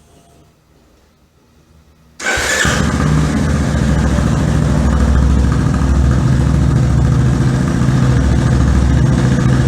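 Yamaha Fazer 250's single-cylinder engine started about two seconds in, cranking briefly and catching at once, then idling steadily through a Jeskap aftermarket sport exhaust with its baffle insert fitted.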